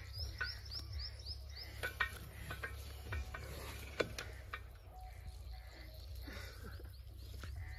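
Scattered metallic clicks and clanks from handling the crank and fittings of an old stationary pump engine that is not running, the sharpest click about four seconds in. High chirping calls come early, over a low steady rumble.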